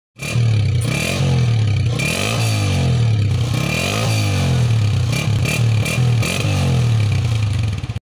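Honda CG 125 single-cylinder four-stroke engine running, heard at the exhaust, revved again and again so its pitch rises and falls in repeated throttle blips.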